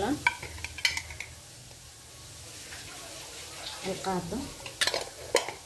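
Light clinks and taps of a small glass spice jar as ground spice is shaken out over raw fish fillets in a bowl: a few short clicks shortly after the start and a cluster again near the end.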